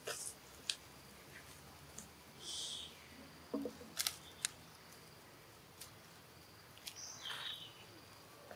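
Macaques moving over dry leaf litter: scattered sharp clicks and crackles of the leaves, with a few short high-pitched chirps.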